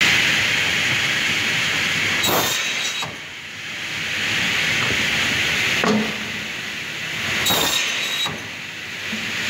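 Cursal TVM Ø600 semiautomatic crosscut saw working: a steady hiss runs under two short loud bursts and a few sharp knocks, the cycle repeating about every five seconds.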